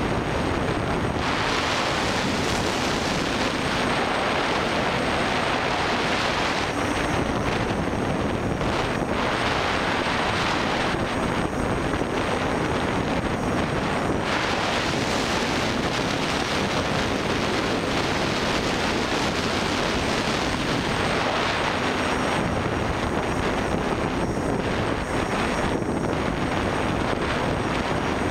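Electric motors and propellers of an FPV quadcopter heard from its onboard camera: a steady whirring rush mixed with wind noise, swelling and easing several times.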